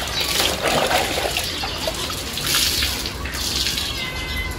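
Water splashing and dripping in irregular surges as a wet, soapy cloth is handled and wiped over a motorcycle during a hand wash.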